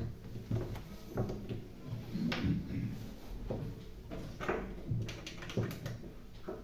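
Irregular knocks and clicks of chess play: pieces set down on the board and chess clock buttons pressed, about one to two a second.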